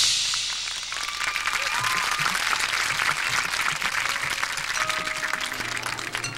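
Crowd applauding and cheering, with a few whistles, as the marching band's music breaks off at the start. The clapping fades gradually toward the end.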